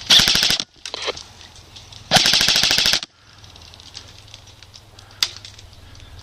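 Airsoft rifle fired on full auto in two rapid bursts: a short one of about half a second right at the start, and a longer one of nearly a second about two seconds in. A single sharp click follows a couple of seconds later.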